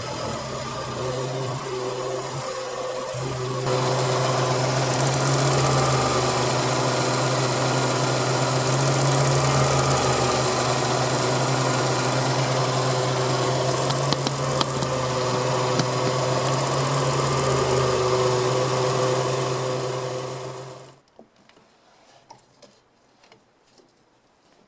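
Suzuki Cappuccino's small three-cylinder turbo engine running steadily, growing louder about three and a half seconds in, then shut off near the end, leaving only faint small clicks.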